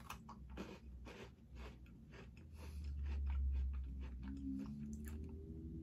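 A bite into a crisp Pepperidge Farm Milano sandwich cookie, then chewing close to the microphone: a run of small dry crunches.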